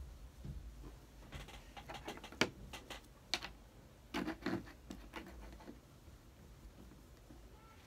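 Scattered light taps, clicks and scratches of a paintbrush, paint pots and a painted egg being handled on a tabletop, with a couple of sharper clicks about two and a half and three and a half seconds in.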